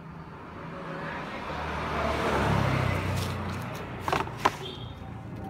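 A motor vehicle passing by: engine hum and road noise swell to a peak about halfway through, then fade away. A few sharp clicks follow about four seconds in.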